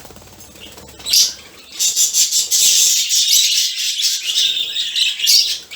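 A flock of budgerigars chattering and chirping. A short loud burst comes about a second in, and from about two seconds in the calls run together into a dense, continuous high chatter.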